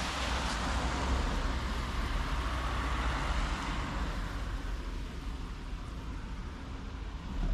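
A car passing on a street, its tyre and engine noise fading away about four seconds in, over a steady low traffic rumble.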